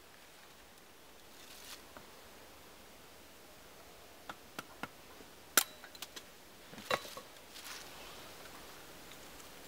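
A handful of sharp clicks and knocks, the loudest about halfway through and another about a second later, followed by faint rustling.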